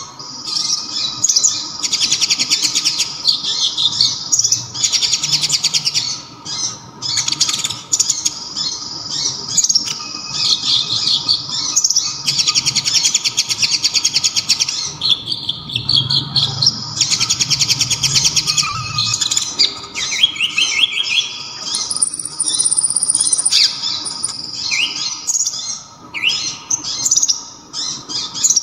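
Kolibri ninja (konin), a sunbird, singing loud, sharp, high-pitched song. It comes in fast rattling trills of many notes a second, in phrases of a few seconds broken by short pauses, and its song is filled with the kapas tembak's phrases. A faint steady hum runs underneath.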